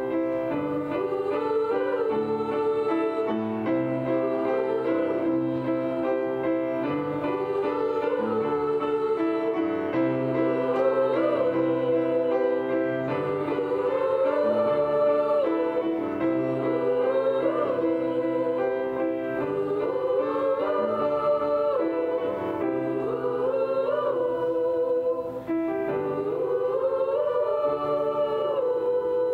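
Middle-school chorus singing with grand piano accompaniment, the voices holding and gliding through repeated phrases over steady piano chords.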